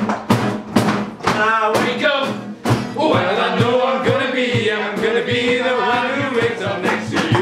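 Acoustic guitar and acoustic bass guitar strummed in a steady rhythm while several people sing along. The voices come in about a second in and carry on steadily from about three seconds in.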